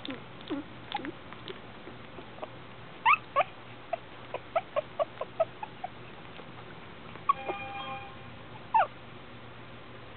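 Three-week-old Shih Tzu puppies whimpering and squeaking. Short high squeaks come throughout, with a quick run of them about three to six seconds in and a longer whine about seven seconds in.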